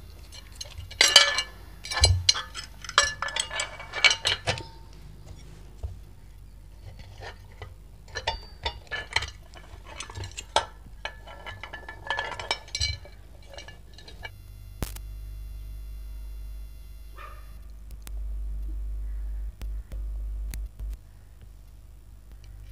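Clicking and clattering as the plastic LED street light housing, its wires, screws and tools are handled, in two busy spells of sharp knocks. Later the handling quietens and a steady low hum comes in, louder for a few seconds near the end.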